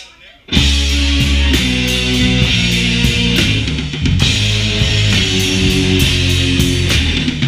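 The last drumstick click of a count-in, then about half a second in a live rock band comes in loud: electric guitar and a full drum kit with regular cymbal hits.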